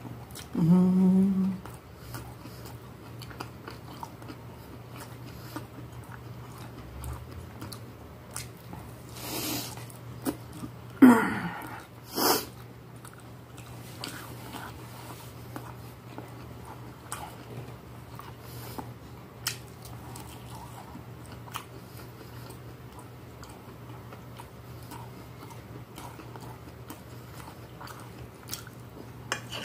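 Close-up chewing of a mouthful of rice, beans and meat, with small sharp clicks scattered through it, such as a fork against a glass plate. A short hummed 'mmm' comes about a second in, and a brief vocal sound near the middle.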